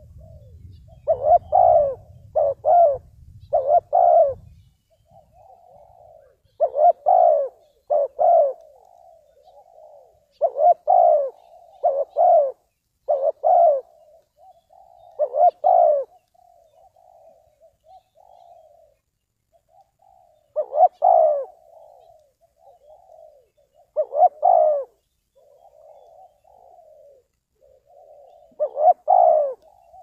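Spotted dove cooing: phrases of two to four loud, low coos with softer notes between, repeated every few seconds. A faint low rumble lies under the first few seconds.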